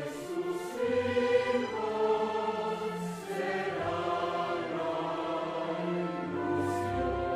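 Slow music with a choir singing long held chords that change every second or two.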